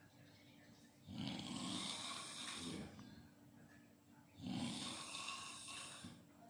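A sleeping person snoring: two long snoring breaths about three seconds apart, the first starting about a second in, with quiet gaps between them.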